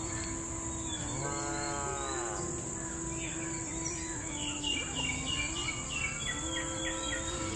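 A cow moos once, a drawn-out call about a second long starting a little after a second in, over a steady high drone of insects. Around the middle a bird gives a quick run of short falling chirps.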